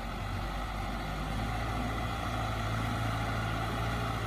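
Tractor engine idling steadily: an even low hum over a constant noise, with the hum growing firmer about a second in.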